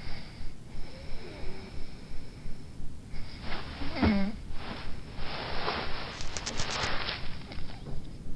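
A sleeping person breathing heavily and snorting through the nose, in repeated rushes of breath, with a short groan falling in pitch about four seconds in as they roll over under a blanket.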